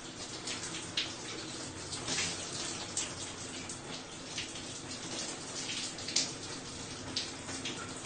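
A person showering: water from the shower head runs in a continuous rush, broken by irregular sharper splashes.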